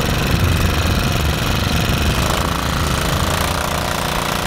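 Small gas-powered water pump engine running loud and steady, drawing river water up to feed a gold-mining sluice. The pump has just been repaired after rocks were sucked into it.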